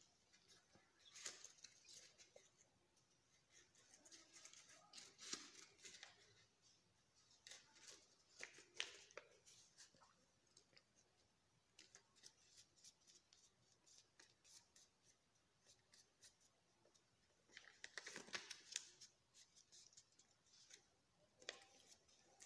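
Sheet of paper being handled, folded and creased by hand into a paper airplane: faint crisp crackles and rustles in several clusters, about a second in, around five and nine seconds, and again around eighteen seconds.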